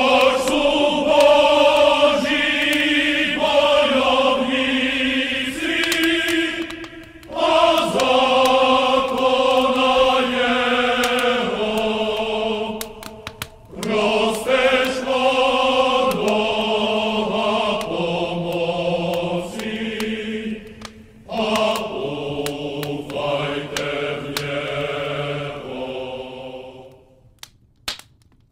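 A choir chanting a slow melody in long held notes, in four phrases with short breaks about 7, 14 and 21 seconds in; it fades out near the end.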